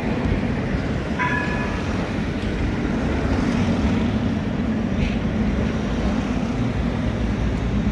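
Articulated city tram rolling across a street intersection, a steady low rumble mixed with road traffic. About a second in there is a short high-pitched tone lasting about half a second.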